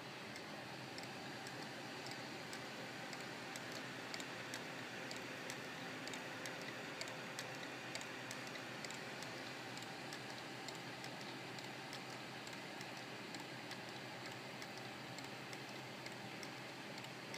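Whirligig mechanism turning, giving off a run of light, irregular ticks and clicks, several a second, over a steady hiss.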